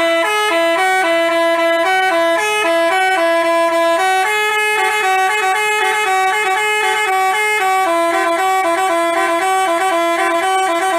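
Bus telolet horn, a Basuri multi-tone musical horn, playing a quick tune of pitched notes stepping up and down, several notes a second at a steady loud level.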